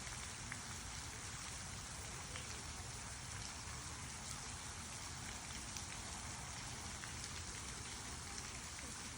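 Waterfall: a steady rush of falling water, with faint small splashes ticking through it.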